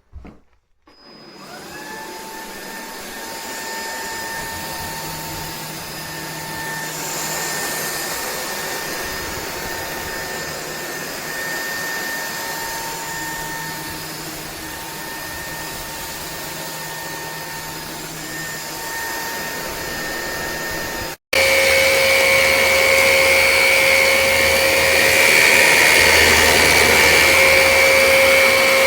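Hoover ONEPWR Evolve Pet Elite cordless stick vacuum switching on about a second in, its motor spinning up and running steadily with a high whine. About twenty seconds in the sound cuts off abruptly and a louder vacuum run takes over, with a lower, steady whine.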